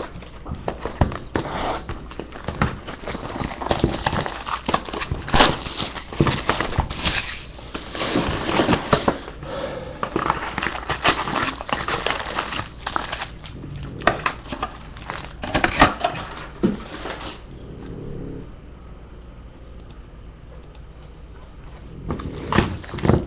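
Handling noise from a cardboard box of foil-wrapped trading card packs being opened and the packs pulled out: a dense run of crinkling and sharp snaps from the wrappers and box. It goes quieter about two-thirds of the way through and picks up again near the end.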